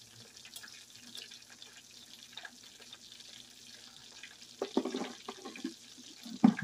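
Chicken wings deep-frying in peanut oil in a cast-iron skillet: a steady bubbling crackle with many small pops. A few louder knocks come about two-thirds of the way through.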